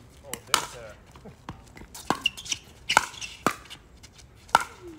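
Pickleball rally: paddles hitting the plastic ball back and forth, a series of sharp pops, about seven or eight at irregular spacing of roughly half a second to a second.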